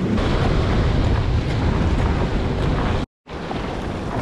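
Wind buffeting an action-camera microphone with a rumbling rush, over choppy water. The sound cuts out for a moment about three seconds in, then the wind noise resumes.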